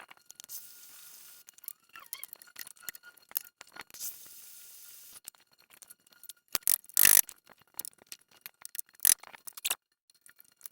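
Hand tools clicking, scraping and knocking on metal as a worn rubber leaf-spring shackle bushing is worked out from under the car, with two louder sharp knocks late on and two short stretches of hiss.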